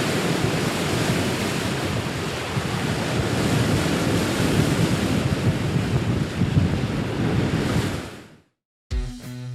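Wind buffeting the microphone with the sea washing around it, a steady rough rush. It cuts off suddenly a little after eight seconds in, and guitar music starts just before the end.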